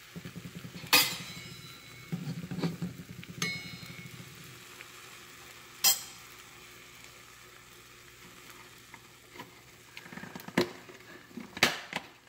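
Egg-in-bread frying in a nonstick pan, sizzling softly with a fine crackle that is strongest in the first four seconds. A few sharp metallic clinks against the pan come through, the loudest about a second in and near six seconds.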